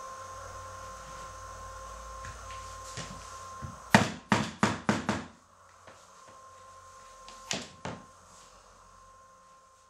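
Mallet blows on the wooden stretcher bar of a linen canvas: a quick run of about five strikes about four seconds in, then two more a few seconds later.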